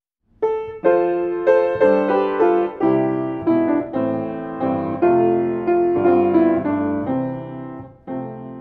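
Piano music: a series of struck notes and chords, each left to ring and decay, starting about half a second in and dying away near the end.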